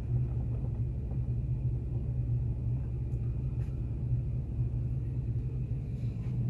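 Ford E-350 engine idling steadily, a low even rumble heard from inside the cab.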